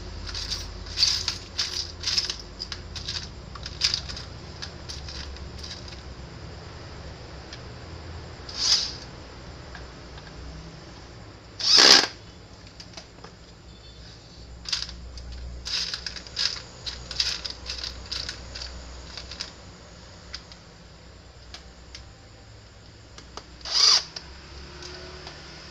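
Scattered clicks and taps of a plastic Honda Vario 150 headlight housing being handled and worked on with a small handheld tool, with three louder brief hissing sounds about nine and twelve seconds in and again near the end.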